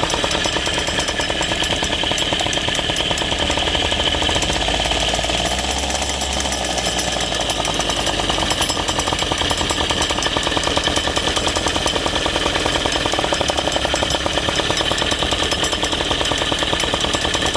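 Aprilia SR50's Minarelli two-stroke scooter engine running steadily with a rapid rattle, the unexplained strange noise its owner is asking about.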